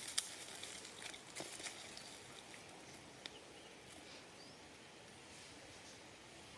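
Faint outdoor ambience: a steady low hiss with a few sharp clicks and rustles in the first few seconds.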